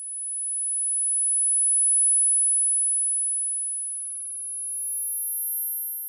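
Synthesized pure sine tones for tinnitus neuromodulation, very high-pitched and steady. One tone swells and then fades. About three and a half seconds in, a slightly higher tone joins it, then a still higher one, and the tones stop together near the end.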